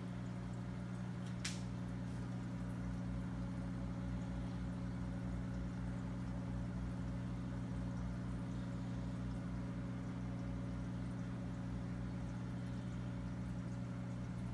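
Aquarium air pump humming steadily, with air bubbling from an air stone in the tank; a brief tick about a second and a half in.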